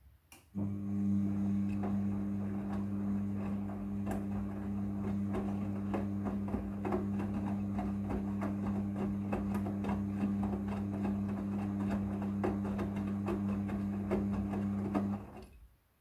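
Midea front-loading washing machine's motor turning the drum with a wet blanket inside during the wash cycle: a steady low hum with many small clicks and knocks from the tumbling load. It starts about half a second in and stops near the end.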